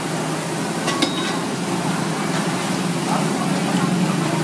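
Mud crabs boiling in a thick sauce in a wok over a gas burner: a steady hiss of bubbling and burner flame with a low hum underneath, and a couple of light clicks about a second in.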